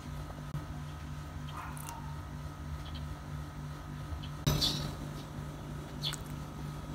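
Hands working a squishy rubber toy, pulling out its sticky plug: faint small clicks, then a sharp snap about four and a half seconds in and a lighter click about a second and a half later, over a steady low hum.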